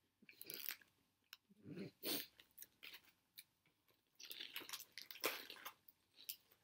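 Crunching and chewing of Tongku, a Korean wafer-and-chocolate cereal stick, with crinkling of its plastic packet as it is opened.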